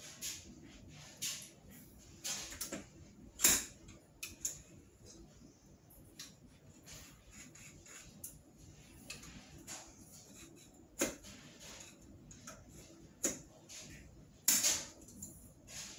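Scattered clicks, knocks and rustles of new crutches being handled and adjusted, with a sharp knock about three and a half seconds in and a longer rustling scrape near the end.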